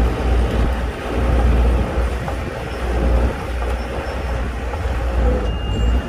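Komatsu mini crawler bulldozer's diesel engine running under load as it pushes sand with its blade, its steel tracks clanking.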